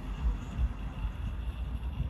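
Wind buffeting the microphone over the low, uneven rumble of a moving vehicle.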